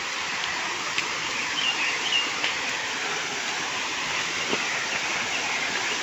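Waterfall's falling water making a steady rushing hiss, with a few faint bird chirps about two seconds in.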